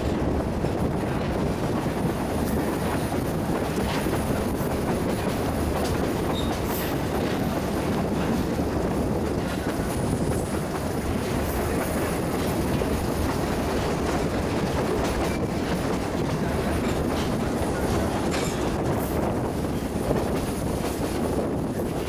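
Passenger train running along the track, heard from a carriage window: a steady rumble of wheels on rails with scattered clicks.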